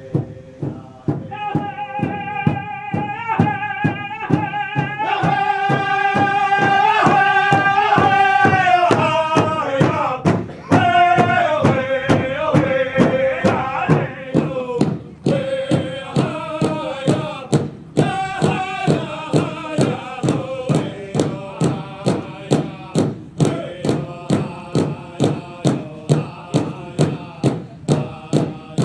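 Powwow drum group singing over a large drum: men's voices chant lines held high that then step downward in pitch, with a steady drumbeat about twice a second.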